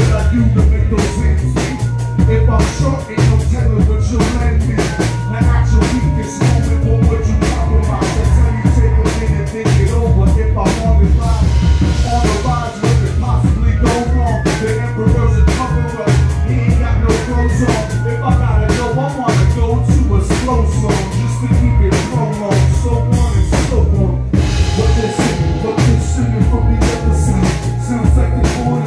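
Live band playing an instrumental passage: a drum kit keeping a busy beat over a heavy bass line, with horns holding long notes above.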